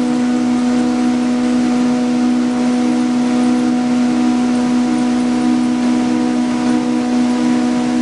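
Corrugator line running, kraft paper webs feeding over its steel rollers: a steady, unchanging machine drone with a strong low hum over a wash of noise.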